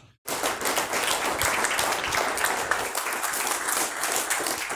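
Audience applauding: many people clapping, starting abruptly just after the close of a talk and beginning to fade near the end.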